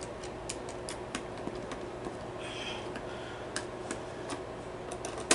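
Small plastic clicks and taps as a projector's lamp-cover plate is fitted back onto its housing and handled with a screwdriver, with a brief scrape about two and a half seconds in and a sharper click at the very end.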